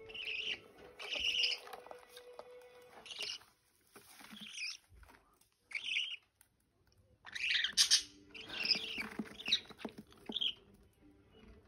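Budgerigars chirping in short repeated bursts, about a dozen calls with a brief lull partway through. Faint small clicks of a chick cracking seed can be heard under them.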